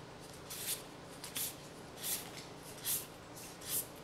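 Magic: The Gathering cards sliding one at a time off a hand-held stack: a soft swish of card on card about every three-quarters of a second.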